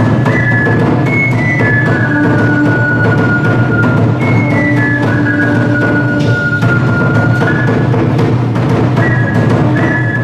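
Music: a high melody stepping between notes over busy drums and percussion.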